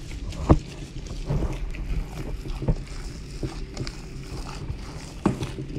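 Gloved hand mixing and kneading a raw meatball mixture in a stainless steel bowl: wet squishing with scattered knocks and dull thumps, the loudest about half a second in, near the middle and near the end.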